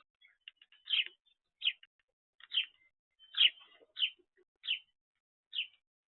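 A bird chirping, a string of about seven short, sharp notes a little under a second apart, each one sweeping quickly downward.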